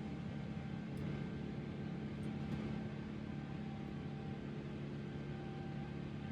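Steady hum inside a Boeing 777's cabin: airliner air-conditioning and engine noise with a few constant low tones.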